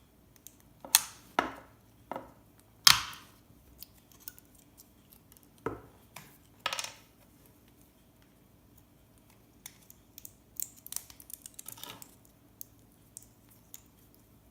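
Hand tools snipping and snapping components off scrap circuit boards: a few sharp clicks and cracks, the loudest about three seconds in, then a run of light ticks and small rattles of parts.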